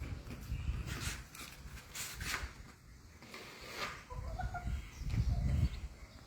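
A hen gives a short call about four seconds in, among a few sharp taps and clicks. A gusty low rumble of wind on the microphone runs underneath.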